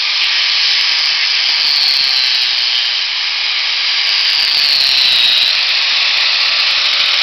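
Power grinder grinding down a hoof, a steady abrasive hiss with the motor's whine dipping slightly as the disc bites, levelling the sole flat.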